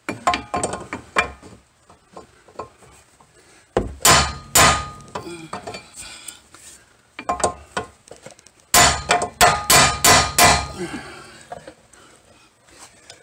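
Heavy hammer striking a brass drift set on top of a stuck suspension ball-joint stud's nut, trying to shock the tapered stud loose: light taps at first, two hard blows about four seconds in, then a quick run of about six hard blows near nine to ten and a half seconds. The stud does not break free.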